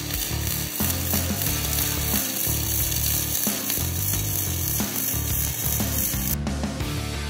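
Flux-cored MIG welding arc running steadily along a straight bead with no weave, a dense hissing crackle over background music with a steady bass beat. The arc noise cuts off about six and a half seconds in while the music carries on.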